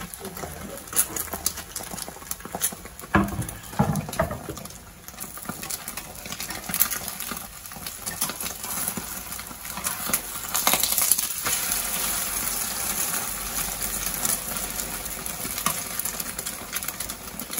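Thin egg omelette frying in a hot frying pan, with scattered clinks and knocks of a utensil against the pan and a brief hiss about ten seconds in.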